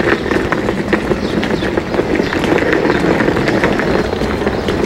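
Hurried footsteps on pavement, with the wheels of a rolling school bag rattling over the ground.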